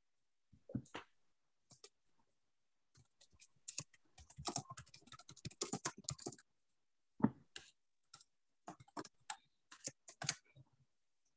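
Computer keyboard typing, picked up by an attendee's unmuted microphone on a video call: irregular runs of key clicks, densest in the middle, as participants type answers into the chat.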